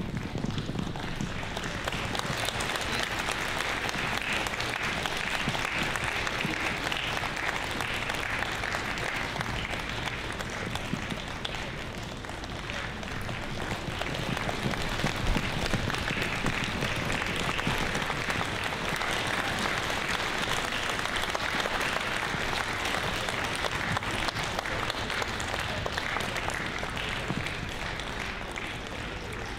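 An audience applauding, a dense steady clapping that eases a little about twelve seconds in and then fills out again.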